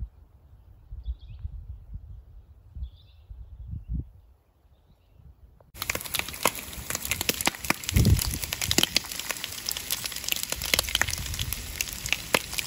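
Bacon rashers sizzling and crackling in a frying pan, starting abruptly about six seconds in. Before that, a low wind rumble on the microphone with a few faint high chirps.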